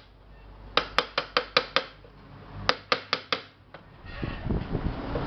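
Hammer striking a chisel held against the metal rim of a pressure cooker, in two quick runs of six or seven light strikes each, metal ringing on metal, reshaping the deformed pot. A louder rumbling noise comes up near the end.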